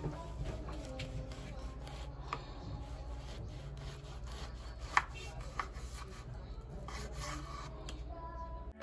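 Kitchen knife cutting through a tough orange on a wooden cutting board: the blade rasps through the thick peel, with scattered clicks of knife and fruit on the board and one sharp knock about five seconds in.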